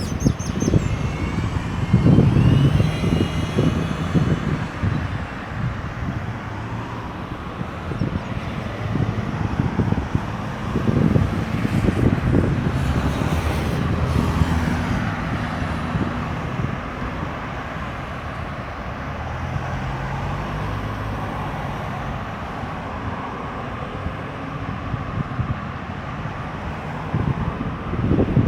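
Steady highway traffic: cars and trucks passing, with engines and tyre noise. Louder vehicles go by a couple of seconds in and again around the middle.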